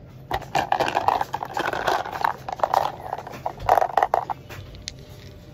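Clothes hangers clattering and knocking against each other as they are handled and sorted, a rapid run of clicks that stops after about four seconds.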